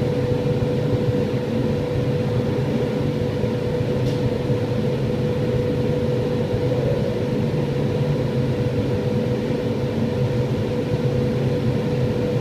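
Steady fan hum, with a constant mid-pitched tone over a low rumble. There is a faint click about four seconds in.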